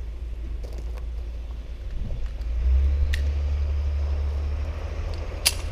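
Wind buffeting the microphone as a steady low rumble that swells from about halfway through, with a few light clicks and a sharper click near the end.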